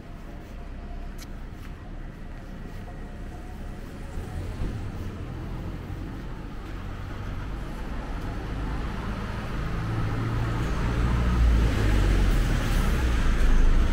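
A city bus drives past close by on the street, its engine rumble and tyre noise building over the last several seconds and loudest near the end, over faint background traffic.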